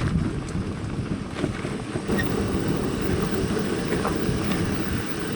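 Wind buffeting the microphone: a steady low rumble without pitch or rhythm.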